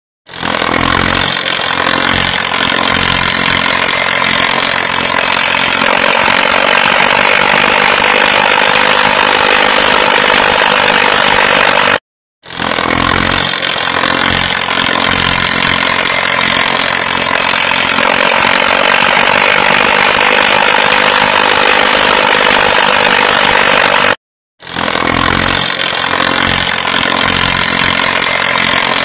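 Swaraj 855 tractor's three-cylinder diesel engine running hard under load while pulling tillage implements through a field, a loud, steady, raspy drone. The sound cuts out briefly twice, about twelve and twenty-four seconds in, then resumes the same.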